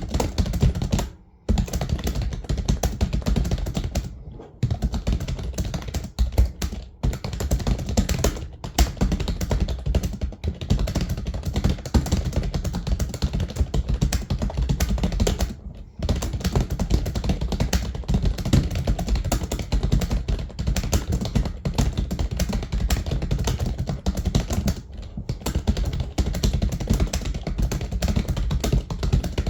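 Computer keyboard being typed on very fast and continuously, a dense stream of key clicks broken by short pauses about a second in, around four and a half seconds, sixteen seconds and twenty-five seconds in.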